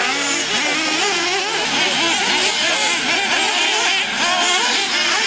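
Several nitro RC buggies' small two-stroke glow engines revving and easing off as they race, many overlapping pitches rising and falling constantly.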